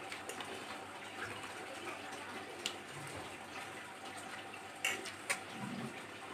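Eating noodles: a metal spoon clicks sharply against a plate three times, once midway and twice close together near the end. Soft mouth sounds of chewing and slurping noodles run over a steady background hiss.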